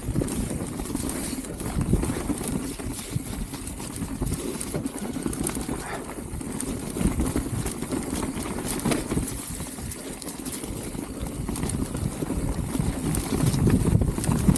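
Mountain bike riding down a muddy trail: steady tyre rumble with a constant clatter of knocks and rattles as the bike goes over bumps, under a hiss of wind on the microphone.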